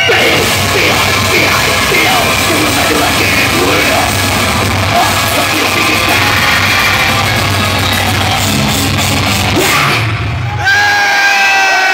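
Black metal band playing loud and dense live, with shouted vocals over the din. About ten seconds in the music breaks off and long held yells and whoops take over.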